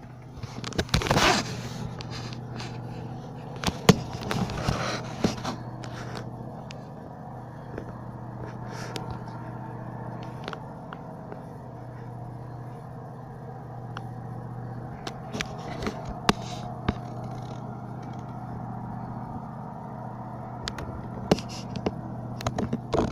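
A steady low hum or drone, the kind of unexplained noise from the sky the recording is meant to capture, with scraping and clicking from the recording device being handled, heaviest in the first few seconds and again near the end.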